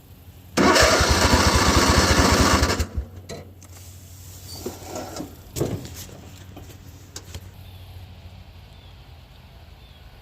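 Lawn tractor's starter engaging for about two seconds with a fast pulsing, then cutting off without the engine catching. A few fainter clunks follow. It is part of a failed start on a tractor that won't turn over.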